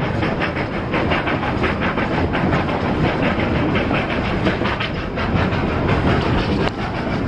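3 ft narrow-gauge passenger car rolling along the track: a steady clatter of steel wheels on rail, with many rapid, irregular clicks. One sharper click near the end.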